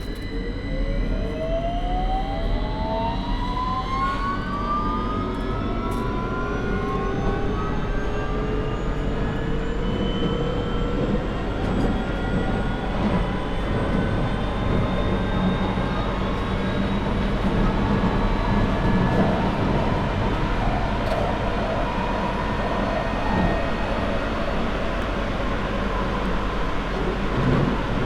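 London Underground 2009 Stock (Bombardier Movia) train pulling away, its traction motors whining in several tones that rise together in pitch as it accelerates. They level off after about ten seconds into steady running noise and rumble in the tunnel.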